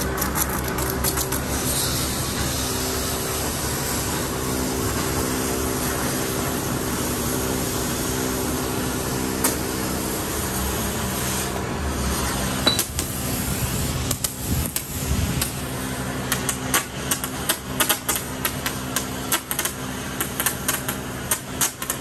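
Engine of a truck-mounted crane running steadily, with a scatter of sharp clicks and knocks over the last nine seconds or so.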